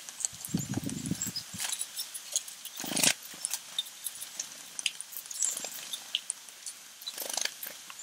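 Small backyard birds: scattered short, high chirps and calls over many small taps and clicks, with a few louder rustling bursts, the loudest about three seconds in.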